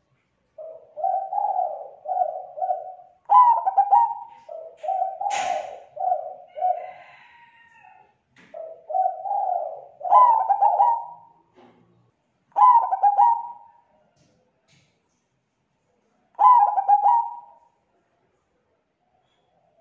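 Zebra dove (perkutut) cooing: quick staccato phrases of several rolling notes, repeated in groups, with the pauses between them growing longer toward the end. A single sharp click about five seconds in.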